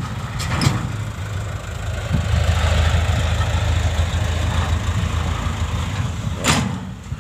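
An engine running steadily, growing louder about two seconds in and easing off near the end, with a sharp tap near the start and another near the end.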